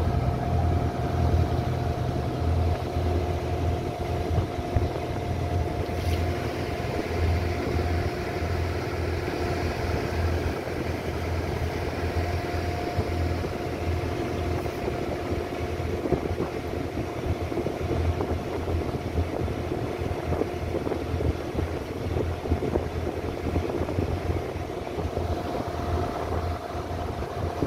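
Engine of a small passenger ferry boat running steadily under way: a low throb with a steady whine above it, over a hiss of wind and water.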